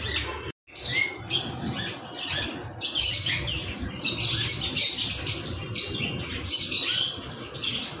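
Budgerigars chirping and squawking in many quick, short calls.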